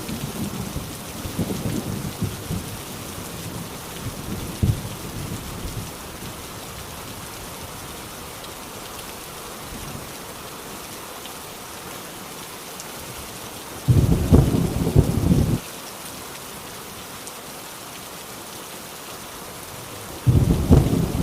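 Heavy rain falling steadily during a thunderstorm. Thunder rumbles and fades over the first few seconds, a short loud crack of thunder comes about two-thirds of the way in, and another roll begins near the end.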